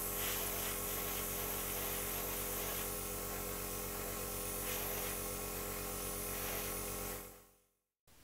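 Small airbrush compressor running with a steady buzzing hum, under the hiss of air and paint spraying from the airbrush. The sound fades out about seven seconds in.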